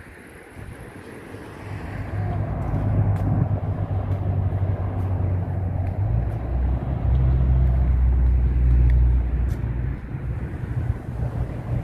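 An engine running close by, a steady low hum that comes in about two seconds in and grows louder, loudest in the second half.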